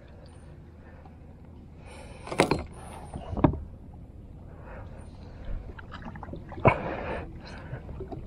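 Water splashing and knocking around a fishing kayak: three short splashes or bumps, about two and a half seconds in, a second later, and near seven seconds, over a low background of moving water.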